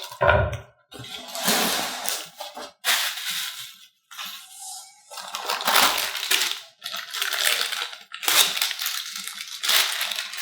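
Packing material crinkling and rustling in irregular bursts as parts are lifted out of a shipping box.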